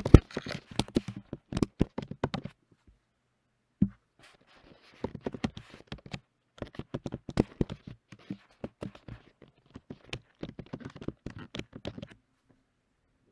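Typing on a computer keyboard: quick runs of key clicks with a sharper click right at the start. The typing pauses after about two and a half seconds, then resumes about five seconds in and goes on until near the end.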